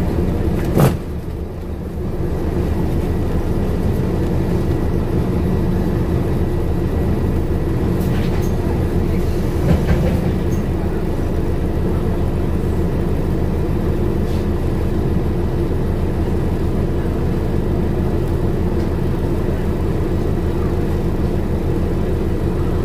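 Scania N230UD Omnicity double-decker bus's five-cylinder diesel engine and ZF automatic gearbox running steadily under way, heard from inside the passenger saloon as a low, even drone. There is a sharp click about a second in, and a smaller knock near the middle.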